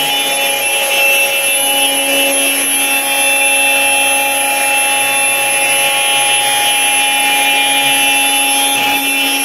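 CNC router running steadily, its spindle whining in several steady tones over a continuous cutting noise as it machines nylon.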